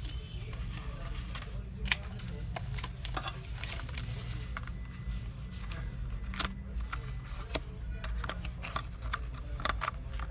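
Irregular light clicks and taps over a steady low hum, with one sharper click about two seconds in.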